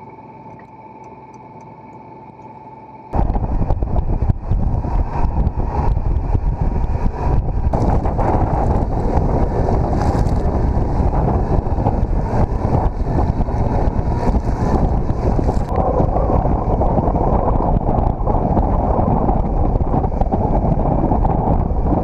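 A steady high electronic tone for about the first three seconds, then wind buffeting the microphone and water rushing along the hull of a sailboat under way, loud and steady to the end.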